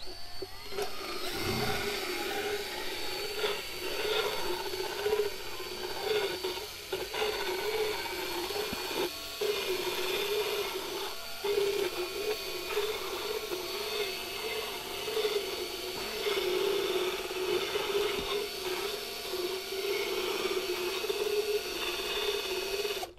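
Motorized dental float grinding a horse's teeth: a steady motor whine that wavers in pitch as the grinding head bears on the teeth, with a rough rasping over it.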